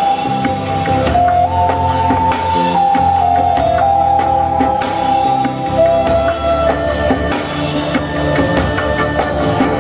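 Native American-style wooden flute playing a slow melody of long held notes that step between a few pitches, with some higher notes in the second half.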